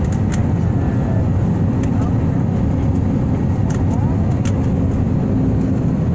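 Jet airliner cabin noise, heard from inside, while the plane rolls along the runway: a steady, loud rumble of the engines and wheels with a low hum, no change in level, and a few faint clicks.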